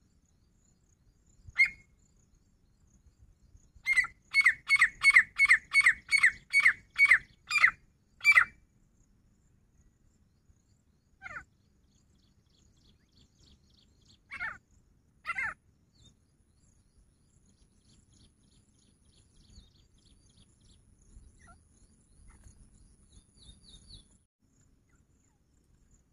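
Grey francolin calling: one loud call, then a fast run of about ten loud, ringing calls at a little over two a second, followed by a few scattered single calls.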